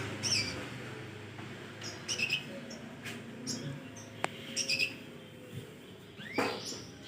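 Canaries chirping: short clusters of high call notes repeated every second or so, with one sharp click a little past the middle.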